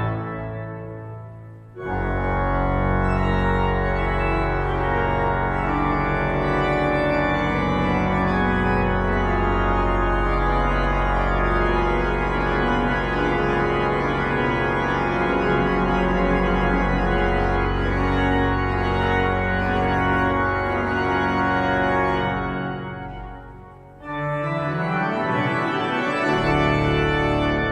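Pipe organ in a cathedral playing loud, sustained full chords over a deep pedal bass. Twice the chords stop, once in the first couple of seconds and again about 22 seconds in, and each time the sound dies away slowly in the church's long reverberation before the next chord enters.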